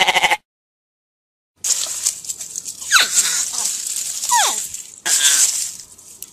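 A sheep's bleat cuts off abruptly just after the start. After about a second of silence, a hedgehog snuffles and sniffs noisily in the grass, with two squeaky calls that fall sharply in pitch, a second and a half apart.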